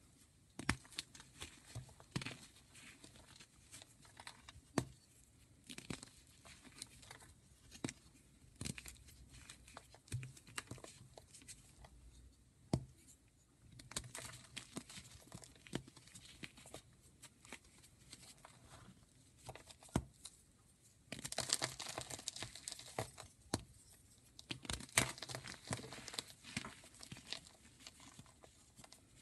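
Gym chalk being crumbled and shaved: scattered crisp cracks and crunches, which thicken into a denser run of crunching and scraping about two-thirds of the way through.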